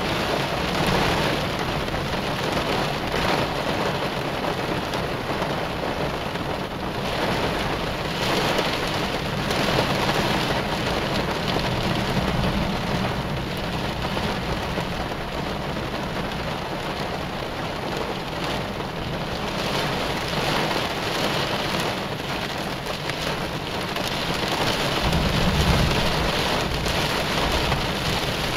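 Heavy thunderstorm rain pouring steadily onto a car, with a low rumble of thunder rising near the end.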